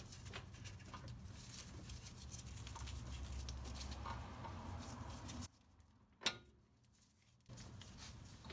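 Faint scattered clicks and rubbing from hands working the driver-side CV axle's outer joint and the steering knuckle of a 2007 Honda Civic Si, over a low hum. The sound falls almost silent for about two seconds near the end, broken by one sharp click.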